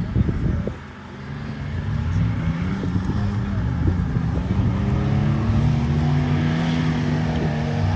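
Off-road vehicle's engine revving under load, its pitch climbing over a few seconds and then holding high and steady.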